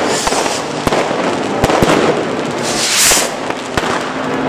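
Fireworks going off: a dense, continuous crackle of many firecrackers and rockets, with several sharp bangs and a brief hissing rush about three seconds in.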